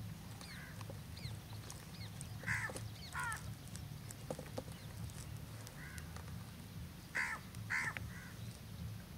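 Birds calling: two pairs of harsh calls, the first pair about two and a half to three seconds in and the second about seven seconds in, with short high chirps between them, over a steady low rumble.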